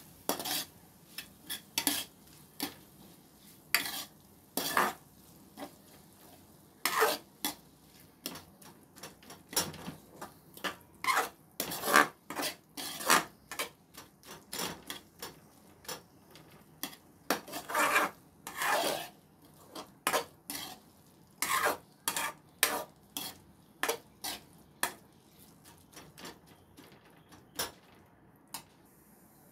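Metal spoon scraping and knocking against an aluminium kadhai while stirring masala as it fries, in irregular strokes about one or two a second with short pauses.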